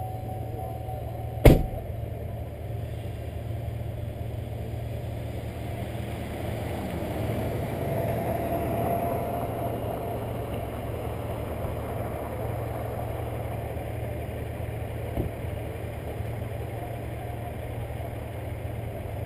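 Car engine idling steadily while the car stands still, with one sharp click about a second and a half in.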